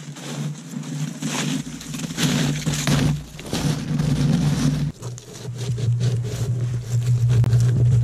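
Snowshoe footsteps crunching in snow over a steady low engine-like drone that drops in pitch about five seconds in.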